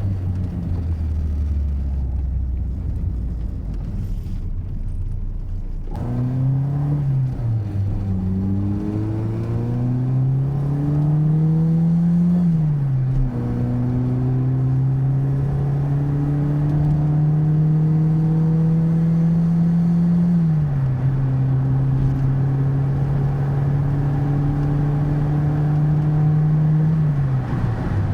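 1983 VW Golf GTI's 1.8-litre four-cylinder engine under way: a low steady rumble at first, then from about six seconds in the engine note climbs and falls as the car accelerates through the gears, then holds a steady pitch with drops near 20 s and 27 s.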